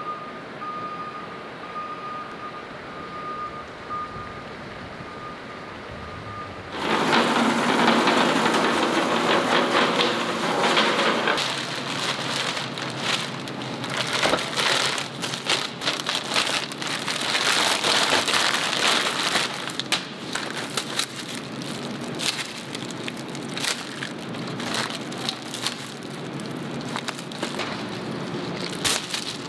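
Thin plastic bag and sheeting crinkling and rustling loudly as they are pulled and handled, a dense run of sharp crackles. It starts suddenly about seven seconds in, after a quieter steady background noise with a faint high whine.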